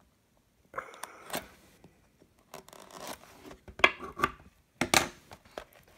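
Box cutter blade scraping and slicing along a sealed cardboard trading-card hobby box to cut it open. The rasping starts about a second in, with a few sharp clicks and taps of handling.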